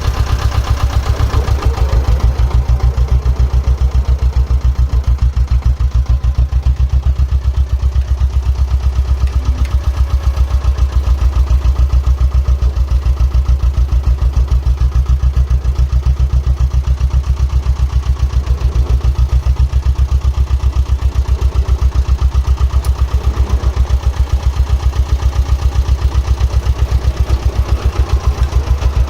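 Diesel engine of construction plant running steadily, with an even, rapid low pulse.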